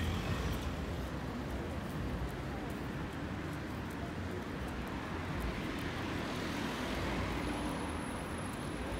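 Street ambience: the steady low rumble of road traffic on a town street.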